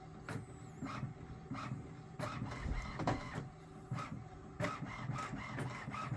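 HP 4520 inkjet printer running its alignment routine after new ink cartridges were installed: the mechanism whirs with a string of sharp clicks and knocks as it feeds paper and prints the alignment page.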